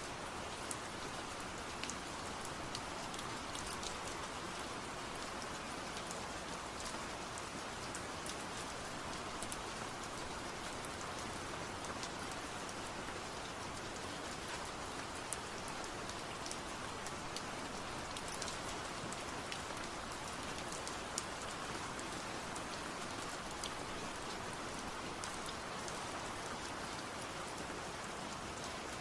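Steady rain falling on a surface, an even hiss with many small scattered drop ticks.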